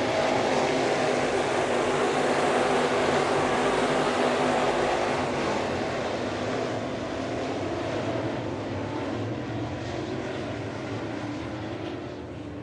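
Dirt-track race cars' V8 engines running at speed as a pack goes by, loudest in the first half and then slowly fading.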